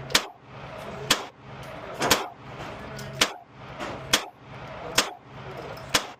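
Walther PDP Compact pistol fired in slow, steady succession: seven sharp shots about a second apart.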